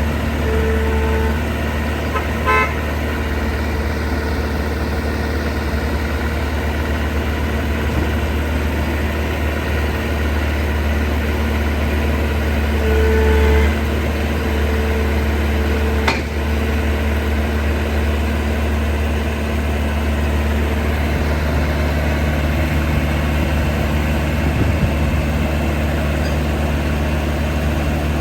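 Heavy diesel earthmoving machinery running steadily with a deep engine drone. A short horn-like tone sounds about a second in and again around 13 seconds, and there is a single sharp metallic knock at about 16 seconds.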